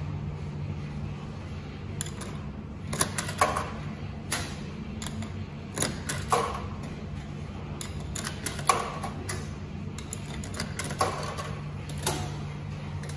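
Coin-slot mechanism of a Primus 10 kg coin-operated washing machine being worked by hand: a series of sharp metallic clicks and clunks in irregular groups, over a steady low hum.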